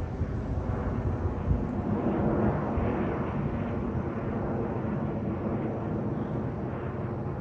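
Airplane passing overhead, a steady rumble of engine noise that swells a little about two seconds in.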